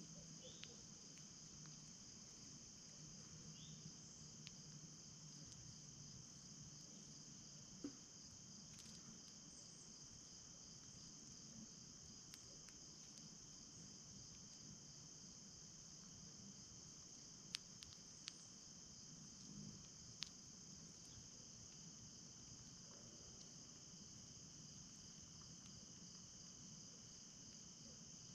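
Faint, steady chorus of insects, an even high-pitched trill that runs without a break. A few short sharp clicks stand out over it, most of them a little past the middle.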